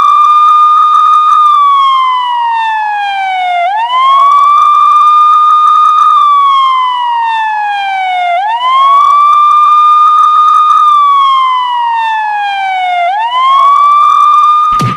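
Police siren wailing. Each cycle rises quickly to a high pitch, holds briefly, then falls slowly, repeating about every four and a half seconds. It cuts off abruptly near the end.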